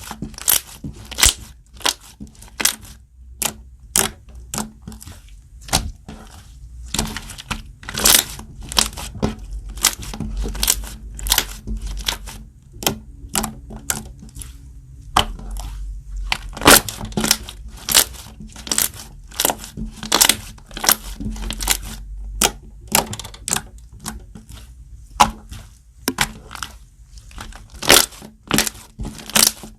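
Glue-all yogurt slime being squished and pressed by hand, making sharp wet pops and clicks, irregular at one to three a second.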